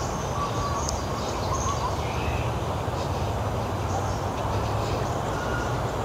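Outdoor park ambience: a steady low rumble with a few short, faint bird chirps over it.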